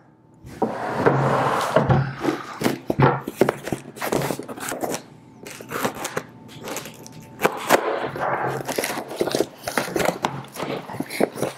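A small cardboard box being slit open with a knife and its flaps pulled open, a busy run of sharp knocks, scrapes and rustles of cardboard, with knocks and scrapes near the start as an electric griddle is shifted on a wooden table.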